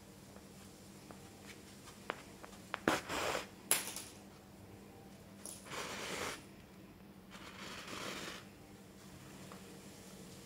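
Wool yarn being pulled through and drawn tight around a small stuffed cotton needle holder by hand: a few light clicks of handling, then about four short scratchy pulls of yarn against fabric, each under a second.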